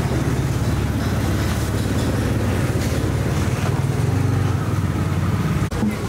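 Street traffic ambience dominated by a vehicle engine running steadily close by, a low rumble, with a brief drop near the end.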